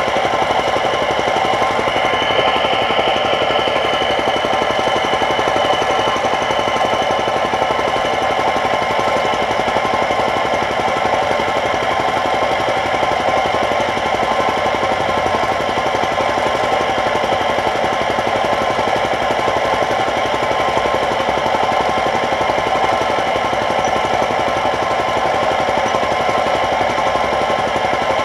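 An engine running steadily with a fast, even chatter that does not let up.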